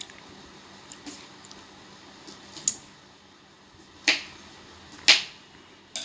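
Faint background hiss broken by a few short, sharp clicks, the two loudest about a second apart near the end.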